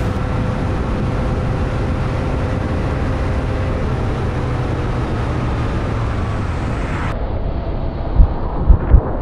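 Motorcycle riding at a steady cruise, the engine running evenly under wind and road noise picked up by an on-board camera. Near the end, wind buffets the microphone in a few loud low thumps.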